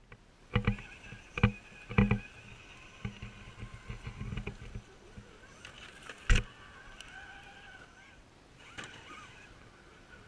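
RC4WD Gelande II Defender scale RC crawler clambering over rocks and dirt: sharp knocks of its tyres and chassis on stone, three in the first two seconds and the loudest about six seconds in, with a low rumble of wheels over rubble around the middle and a faint steady high whine.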